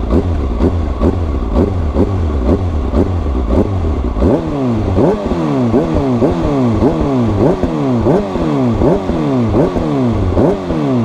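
Kawasaki ZX-6R 636 inline-four revving on an Arrow full exhaust system with the dB killer fitted, the throttle blipped again and again so the pitch rises and falls. The blips come quicker and climb higher from about four seconds in.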